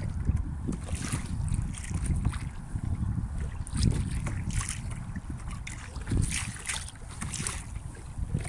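Wind buffeting the microphone with a steady low rumble, while small waves splash and lap against a plastic sea kayak's hull in short, irregular splashes about once a second.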